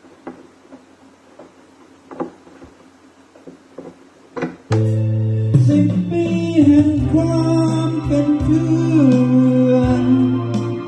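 Faint scattered knocks, then about halfway through a song with guitar and singing starts suddenly, played loud over A&J PA loudspeakers in a small room, with a heavy steady bass line.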